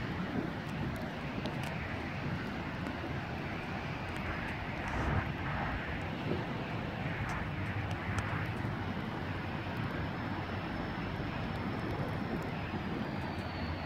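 Diesel locomotive CP 4617 approaching at the head of its train, a steady engine rumble with a faint thin high tone that steps down in pitch near the end.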